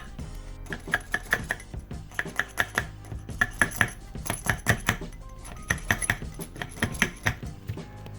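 Metal parts of a power steering pump clinking and being tapped, in quick runs of several sharp taps with short pauses between.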